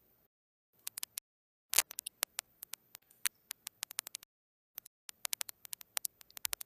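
A run of small sharp clicks, irregular at several per second, coming in bursts with dead-silent gaps between them.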